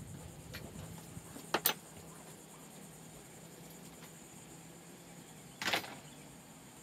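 Footsteps and knocks on a sailboat's deck: a sharp double knock about one and a half seconds in and a longer thump near the end, over a faint steady low hum.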